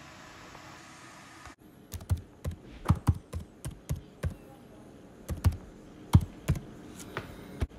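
Steady room hum that cuts off about a second and a half in, followed by irregular clicking taps of keys being typed, a couple each second.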